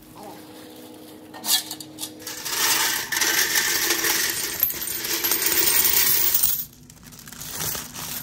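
Coins, golden dollars among them, poured from a vending machine's metal coin box into a plastic bag: a dense jingling rush lasting about four seconds that stops suddenly. A single clack comes just before it.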